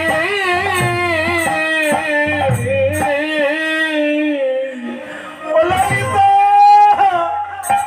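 Male kirtan singer holding long, wavering notes of a Bengali devotional song, with low drum thumps underneath. The voice dips briefly about five seconds in, then rises into a high held note.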